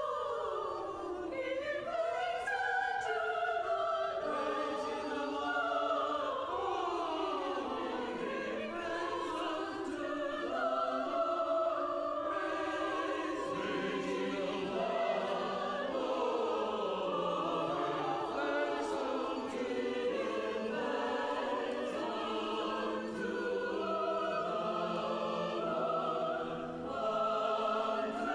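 Church choir singing an offertory hymn.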